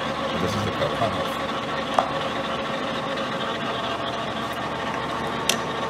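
Steady machine hum of a 1980 LeBlond Regal Servo Shift engine lathe standing powered up, with two sharp clicks, about two seconds in and near the end, as a tool holder is handled on the quick-change tool post.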